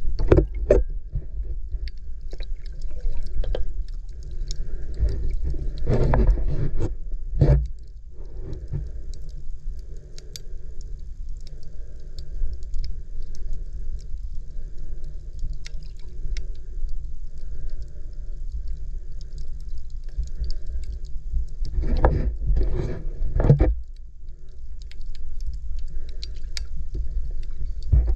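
Sea water moving around the camera: a steady low rumble with scattered faint clicks, and louder surges of water noise about six seconds in and again near the end.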